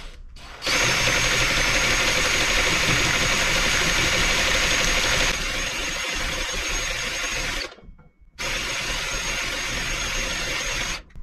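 Cordless drill driving a spray-paint can shaker, rapidly shaking an aerosol can of primer to mix the paint. It starts about half a second in, drops a little in level partway through, stops for a moment about three-quarters of the way through, then runs again until just before the end.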